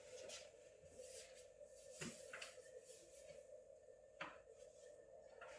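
Near silence: room tone with a steady faint hum and a few faint clicks, about two seconds in and again about four seconds in.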